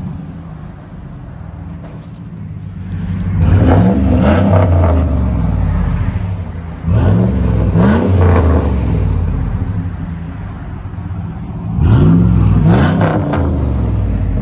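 2005 Dodge Dakota 4.7L V8 exhaust through a Jones JFP glass-pack muffler and dual tailpipes, with the factory resonator removed, idling and revved three times, the pitch rising with each rev.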